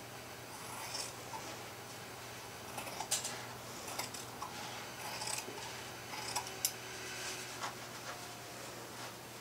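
Metal scissors cutting through denim to trim the hem off a jeans leg: a run of short snips and clicks with soft fabric rustle, loudest about two-thirds through.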